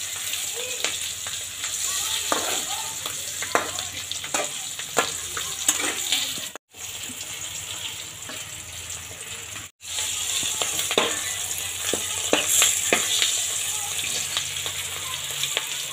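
Stuffed green chillies shallow-frying in hot oil in a metal kadai: steady sizzling with many small crackles and pops. A steel spatula scrapes and turns them in the pan.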